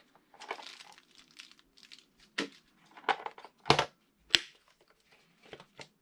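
Plastic dust bin and filter of a Coredy R750 robot vacuum being handled: rustling with scattered sharp plastic clicks and clacks, three of them louder in the middle.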